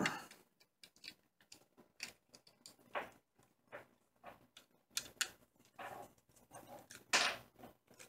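Scattered small clicks and scrapes of a wire and screw terminal being worked on a light switch by hand, as a hooked wire is fitted onto a side terminal screw. The loudest clicks come near the end.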